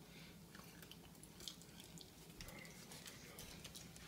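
Faint crunching of a dog chewing popcorn: a few soft, scattered clicks over near silence.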